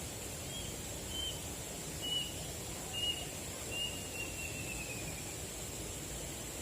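A bird calls a series of five short whistled notes, roughly one a second, ending in a longer falling note, over a steady outdoor noise hiss.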